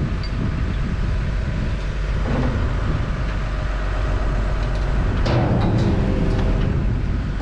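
Diesel engine of a 22-ton JCB JS220 excavator running steadily, swelling briefly with a few sharp knocks about five seconds in.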